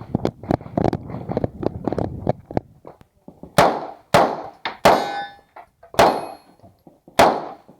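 A flurry of quieter knocks and rattles, then five sharp single shots from a 9mm Uzi Pro pistol, spaced about half a second to a second apart. Steel plates ring with a clang after some of the hits.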